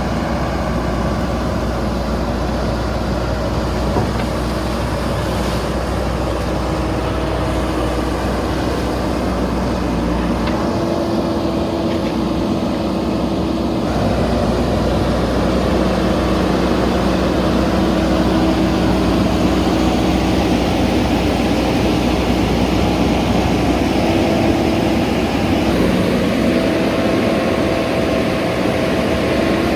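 JCB backhoe loader's diesel engine running steadily, its engine speed shifting a few times.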